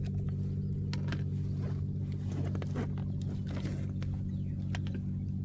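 Boat engine running at a steady pitch, with scattered light clicks and knocks over it.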